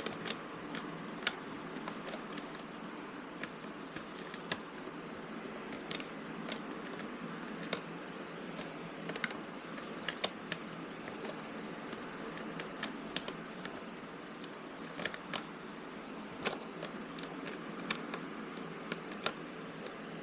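Irregular small clicks and taps of a hand tool and plastic motorcycle fairing panels being handled while the fairing screws are tightened down, over steady background noise.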